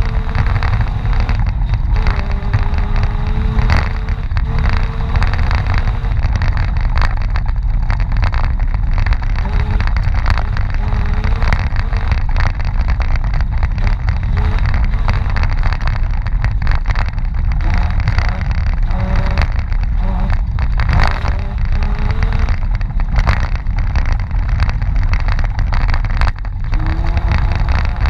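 Mitsubishi Pajero's engine running hard on an off-road stage, its pitch rising and falling as the throttle changes, with frequent knocks and rattles.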